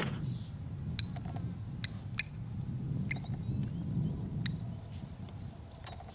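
Outdoor bush ambience: a low steady rumble with about five short, sharp chirps or clicks spread through it.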